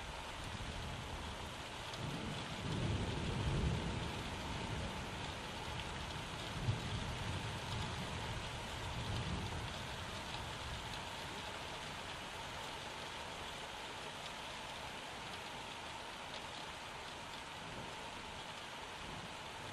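Steady rain falling, with low rumbles swelling about two to four seconds in and again around seven to ten seconds in, and one short knock near seven seconds.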